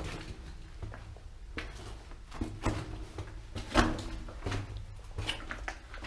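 Footsteps scuffing and knocking unevenly in a small enclosed space, with a louder knock or scrape nearly four seconds in, over a low steady rumble.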